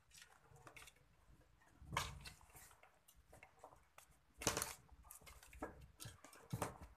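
Faint, scattered scratches and scuffs of a young cat's claws catching on a cloth-covered wooden chair as it paws at the seat and climbs up, with a couple of louder scrabbles about two seconds in and midway.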